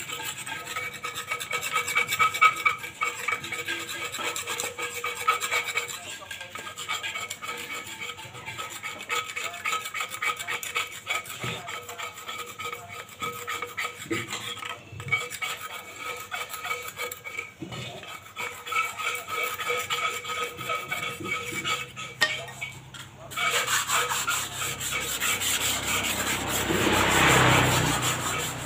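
Rapid hand scraping and scrubbing on cement flower pots as they are cleaned. Near the end a motorbike passes, swelling louder and then fading.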